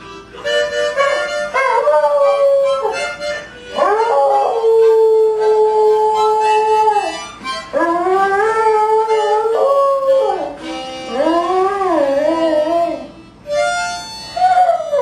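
A rat terrier howling along to music in several long howls that rise and fall in pitch, one held nearly steady for about three seconds.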